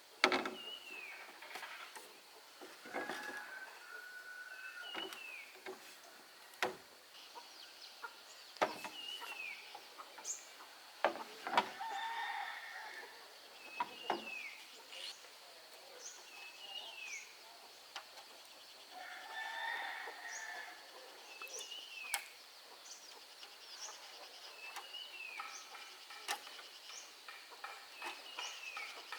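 Chickens calling: short falling chirps every second or two, with a few longer clucking calls. Several sharp knocks are scattered through.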